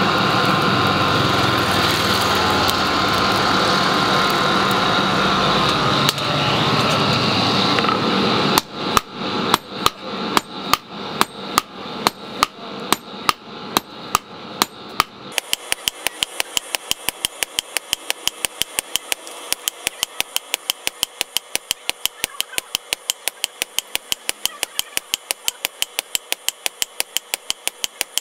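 A steady loud machine noise, then hammer blows on steel, about three a second with a ringing after each, changing abruptly partway through to quicker, very even strikes of about four or five a second: leaf-spring steel being forged into a billhook blade.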